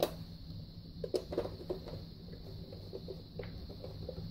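Flat screwdriver turning the top screw of a water heater's inspection cover. A sharp click comes first, then a run of faint, irregular clicks and scratches as the screw is driven in.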